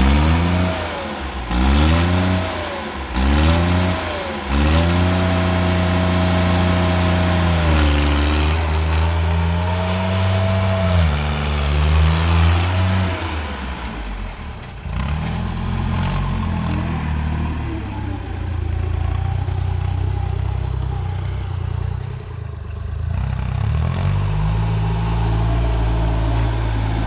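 Sonalika compact tractor's diesel engine revving: quick rise-and-fall blips about once a second, then held at high revs for several seconds with a couple of dips. About 13 seconds in it drops back to a lower, steady run as the tractor pulls a single-tine implement through the soil.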